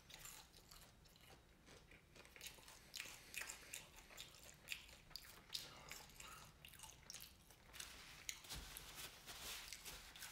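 Faint, irregular crunching of a person chewing fried catfish nuggets and fries, with many small crackly clicks.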